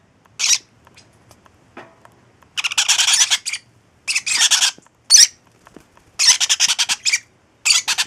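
Baby parrot chicks, a clutch of young green-cheeked yellow-sided conures with lovebird and parrotlet chicks among them, giving raspy, rapidly stuttering squawks in about six short bursts with quiet gaps between.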